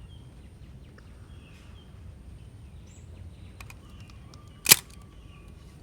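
Nikon Nikkormat FT3 SLR firing its shutter once at 1/1000 s: a single sharp click of mirror and shutter about three-quarters of the way in, after a couple of faint ticks.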